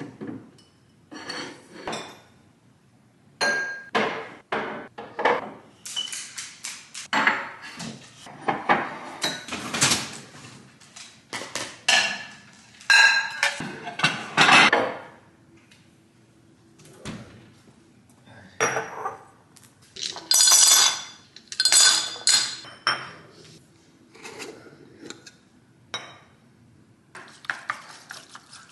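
Dishes and glasses clinking and knocking against each other and the cabinet shelves as they are moved around, a long series of separate clinks and clunks with short pauses.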